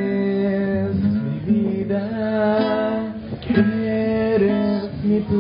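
Acoustic guitar strummed while a voice sings a hymn into a microphone, amplified through a loudspeaker.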